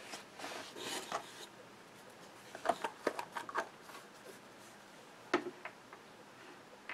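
Faint craft-table handling sounds: a soft scuffing as a foam brush works in a jar of paste, then a few light clicks and taps as things are moved and set down.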